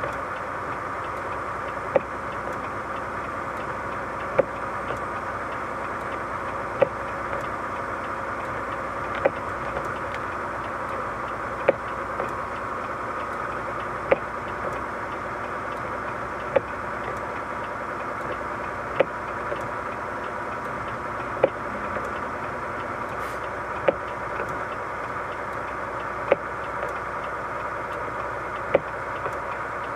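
Steady vehicle road noise with a short, sharp tick repeating evenly about every two and a half seconds.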